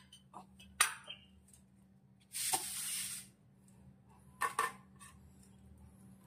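Stainless steel thali clinking and knocking as food is served onto it: a sharp knock about a second in and a couple of clicks later. A hiss lasting about a second comes near the middle.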